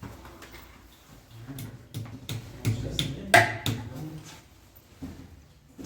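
A quick run of light knocks and clicks, about seven in a little over two seconds, starting about a second and a half in, over a low murmur.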